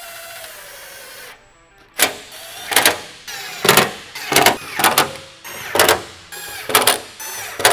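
A cordless power driver tightening 7mm bolts into the under panel. It runs steadily for about a second and a half, then goes on in short trigger bursts, about one a second, as each bolt snugs down.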